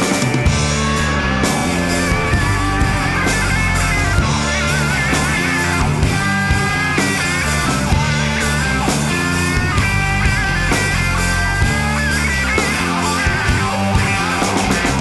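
Background rock music: a lead guitar line with bending, wavering notes over bass and a steady drum beat.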